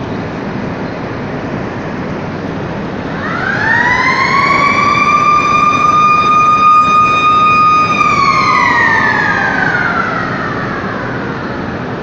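A motor-driven warning siren winds up about three seconds in, holds a steady wail for about four seconds, then slowly winds down. Underneath it runs the steady roar of steel-plant machinery in the converter shop.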